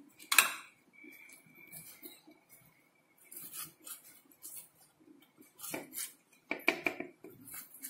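Steel spoon clinking and scraping on ceramic dishes as sauce is spread, with a sharp clink about half a second in and a few more clinks near the end.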